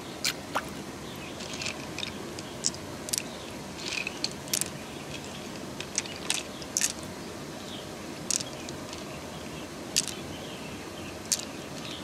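Wet squelching of mussel flesh as fingers pick through it, with scattered sharp clicks of pearls knocking together in a palm, over a steady rush of flowing water.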